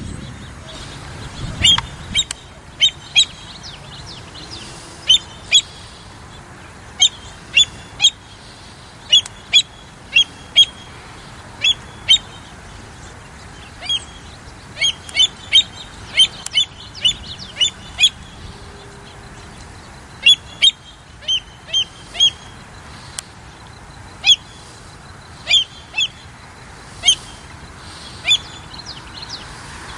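American avocets calling: short, sharp, high notes given singly or in quick runs of two or three, at irregular intervals throughout.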